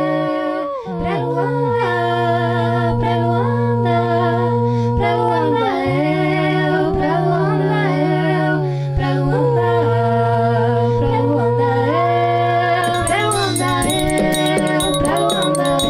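Background song of layered a cappella voices singing and humming long held notes over a sustained low note. A rapid rattling percussion comes in near the end.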